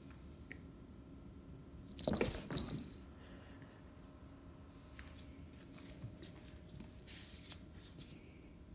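Metal jingle from a cat's collar bell or tag, a short ringing clink two to three seconds in as the cat moves. Faint rustles follow.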